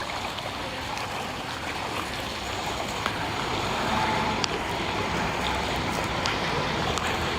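Steady rushing noise of moving water.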